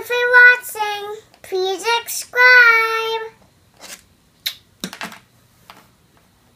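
A high child's voice singing a short phrase of held notes for about three seconds, followed by a few short, soft clicks.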